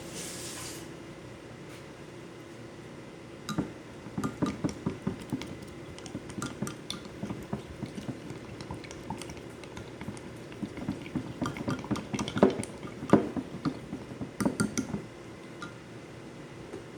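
Metal spoon clinking and scraping against a bowl in quick, irregular runs of taps as yogurt is spooned in and stirred into a mixture, the loudest clinks about twelve to thirteen seconds in.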